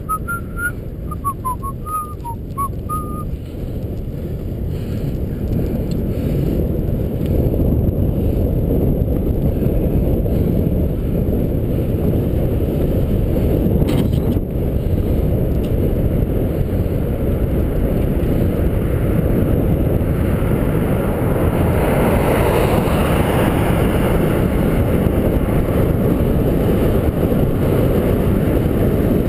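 Wind buffeting a bicycle-mounted camera's microphone while riding along a road, growing louder over the first several seconds as speed builds, then holding steady. A few short whistle-like chirps sound in the first few seconds, and the noise swells briefly about two-thirds of the way through.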